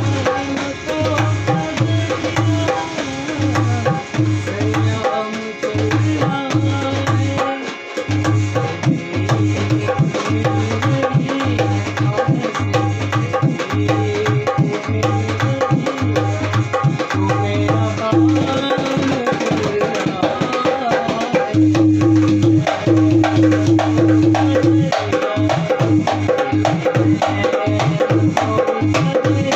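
A dholak, a two-headed Indian barrel drum, played by hand in a steady rhythm: deep bass strokes on one head alternate with ringing higher strokes on the other. About two-thirds of the way through, a run of longer deep bass notes sounds together with a bright ringing tone.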